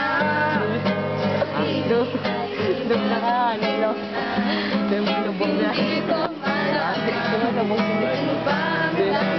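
A small group of young voices singing together to an acoustic guitar being strummed and picked.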